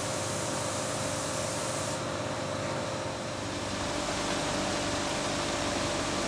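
Steady paint-shop air noise: an even hiss with a steady hum-like tone underneath. The hiss turns duller about two seconds in.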